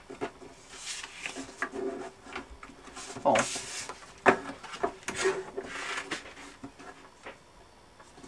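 Card stock being handled on a paper trimmer: the sheets slide and rustle across the cutting bed in a few short swishes, with several light taps and clicks as the paper is lined up.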